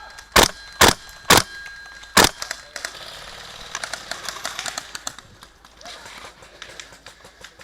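WE L85A2 gas blowback airsoft rifle firing single shots: four sharp reports in the first couple of seconds, each the crack of the bolt cycling on gas. After that come lighter clicks and rustling.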